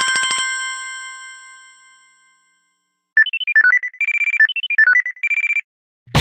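Two Samsung Galaxy S2 built-in alert tones. First, a bell-like ringing tone with a rapid trill at its start that rings on and fades away over about two seconds. Then, about three seconds in, a short electronic melody of beeping notes, played twice.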